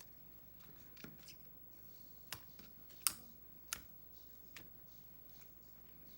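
Handmade slime being squished, trapped air popping in a handful of sharp, irregular clicks, the loudest about three seconds in.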